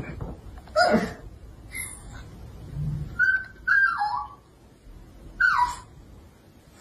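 Small white dog whining at the TV in about four short, high cries that fall in pitch, the first near one second in and the last about five and a half seconds in.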